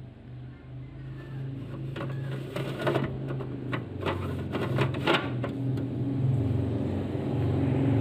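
Plastic clicks and knocks from the twist-tray ice maker of an LG GN-B195SQMT refrigerator as its tray drawer is handled and slid shut, a handful of sharp clicks in the middle. Under them a steady low hum grows louder in the second half.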